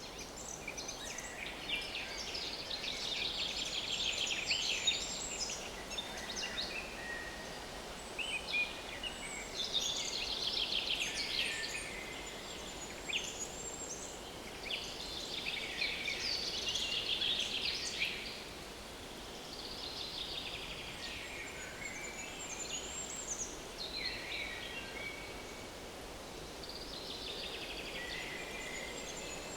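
Small woodland songbird singing the same trilled song phrase again and again, each phrase lasting two to three seconds and falling in pitch toward its end, with a few seconds' pause between phrases, over a faint steady background hiss.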